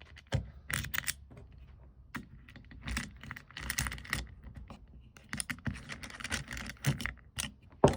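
Small metal screws and parts clicking and rattling against each other in irregular bursts as screws are started by hand into the wheel mount of a swerve drive module.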